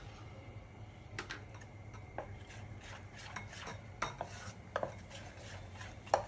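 A spoon stirring thick fermented rice-and-urad-dal dhokla batter in a steel pot, with scattered scrapes and clinks of the spoon against the pot; the sharpest clink comes near the end.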